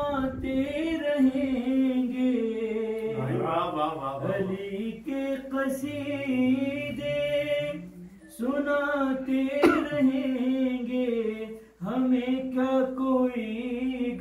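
A man singing a manqabat, a devotional praise poem, unaccompanied, in long drawn-out melodic phrases that break off three times for breath. One sharp click partway through.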